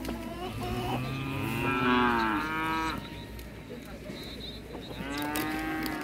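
Long, drawn-out animal calls, each rising and then falling in pitch. One starts about half a second in and runs to about three seconds, loudest near the middle. A second begins about five seconds in.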